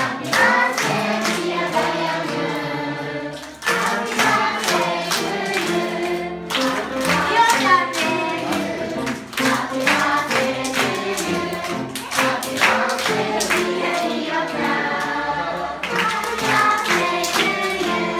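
A roomful of children and adults singing a song together, with hands clapping along in time. The singing breaks off briefly about three and a half seconds in, then carries on.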